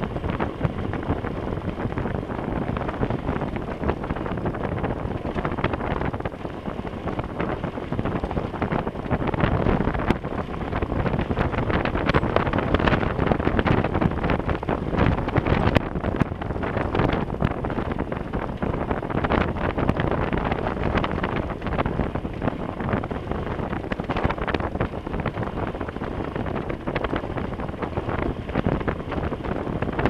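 Wind rushing over a helmet-mounted camera's microphone on a moving motorcycle, with the engine and the tyres on loose gravel beneath it. Steady, with small swells in loudness.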